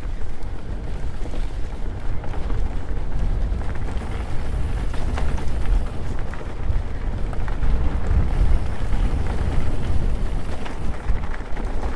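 Wind buffeting an action camera's microphone while mountain biking, a loud, steady low rumble with an even rushing noise over it.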